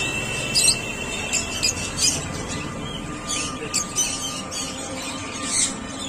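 Hagoromo budgerigars giving a scattered string of short, high chirps and squawks, about eight calls over the few seconds.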